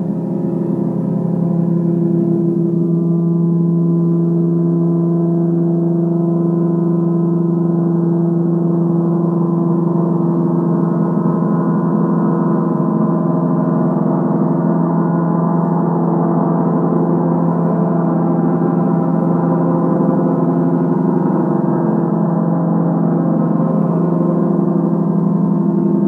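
Gong played in reverse: a steady, dense wash of many overtones over a deep hum, with no strikes heard.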